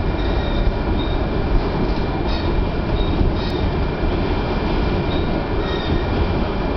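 Elevated subway train running along the tracks, heard from inside the car: a steady loud rumble of wheels and motors, with a few short faint wheel squeals.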